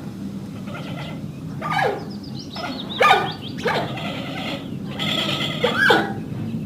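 Giant panda calling: a run of short, high calls, each sliding down in pitch. The loudest come about three seconds in and just before the end.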